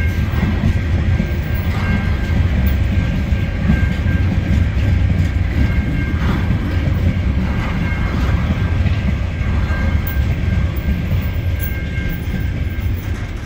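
Freight train hopper wagons rolling past on the rails, a steady heavy rumble of wheels on track with a thin high whine coming and going over it. The rumble eases a little near the end as the last wagon goes by.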